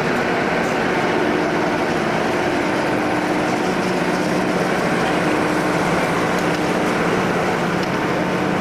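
WAG-5HB electric locomotive standing under the wires, running with a steady whirring hum and a few low held tones.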